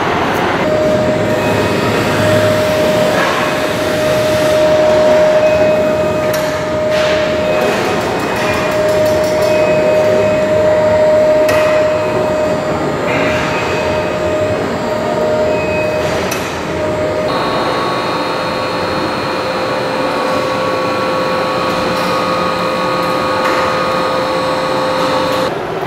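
Steady machinery hum and noise in a railway depot hall, with a few scattered clanks. The pitch of the hum changes about 17 seconds in.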